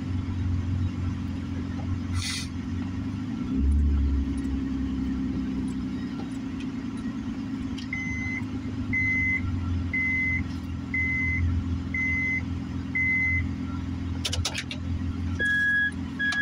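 A car's engine running with a low steady hum while it pulls into a parking space, with a low bump about three and a half seconds in. Midway a high in-car chime beeps six times, about once a second. After a few clicks near the end, a lower-pitched chime starts beeping about once a second.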